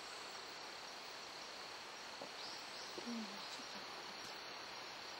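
Faint outdoor ambience: a steady hiss with a continuous high-pitched insect trill, and a brief soft low sound about three seconds in.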